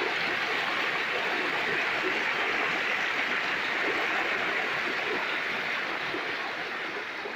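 Waterfall: a steady rush of falling water, with no rhythm or tone in it.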